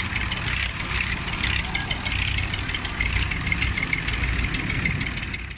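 Background voices of people talking over a steady low engine rumble.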